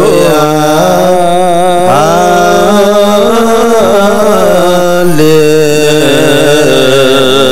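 Ethiopian Orthodox liturgical chanting: slow, melismatic singing on long held notes that waver and glide, moving to a new pitch about two seconds in and again about five seconds in.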